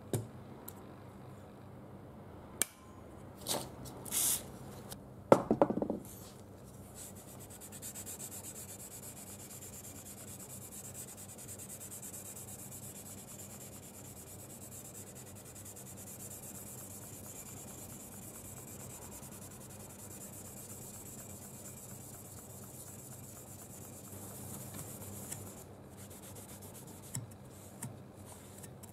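Hand file being draw-filed along the flat of a steel knife blade clamped to a bench: a long, even scraping rasp. Before it, a few sharp knocks and clunks as the work is handled, the loudest about five seconds in; the filing stops about 25 seconds in, then a few light clicks.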